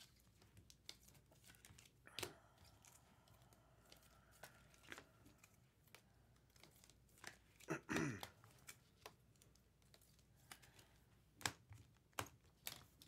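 Faint, scattered crinkling and clicks of trading card packs being torn open and cards being handled, with the loudest rustle about eight seconds in.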